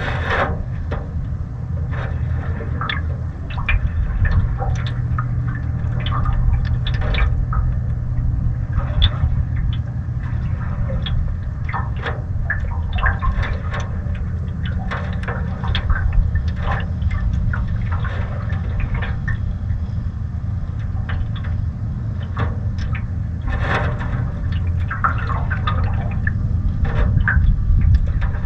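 Water lapping and slapping against the canoe's hull in small irregular splashes, over a steady low rumble of wind on the microphone.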